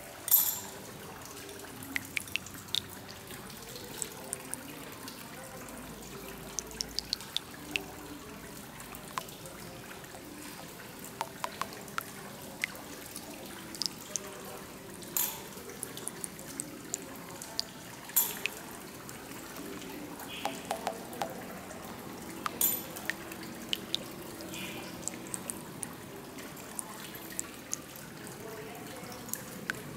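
Water trickling and splashing in a tiered stone fountain, steady throughout, with many scattered sharp drips and clicks.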